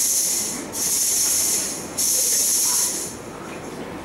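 Repeated loud hissing, about one long hiss a second, three in a row, stopping about three seconds in.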